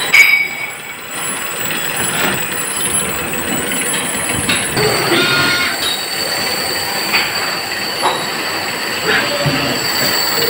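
Machine-shop noise from running machinery: steady high-pitched whines with occasional light metallic clanks. A sharp knock comes just after the start, and a further whine sets in about halfway through.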